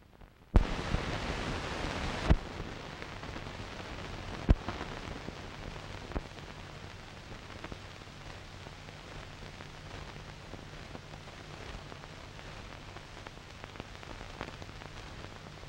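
Surface noise of an old 16mm film's optical soundtrack with no programme sound: steady hiss, louder for the first couple of seconds, over a faint low hum, with several sharp pops and clicks.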